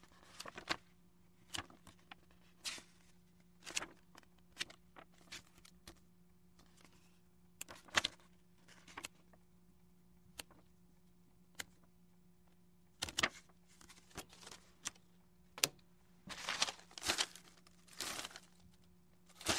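Board game pieces being handled on a table: scattered light clicks and taps, then a stretch of crinkly rustling near the end.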